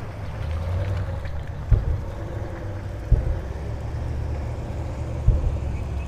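Low, steady rumble of wind buffeting an outdoor action-camera microphone, with three dull thumps spread through it.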